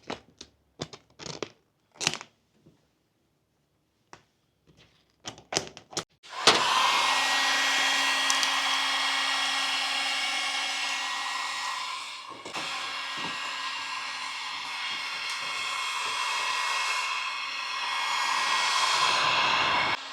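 A run of short clicks and knocks, then about six seconds in an electric blower starts up and runs steadily with a whir. It dips briefly about halfway through and cuts off at the end.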